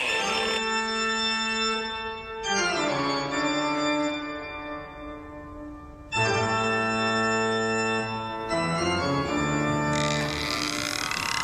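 Organ music playing slow, sustained chords that change every two to four seconds.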